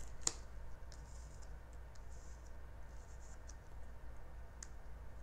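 Faint handling of tarot cards on a table: a few light taps and soft sliding or brushing sounds.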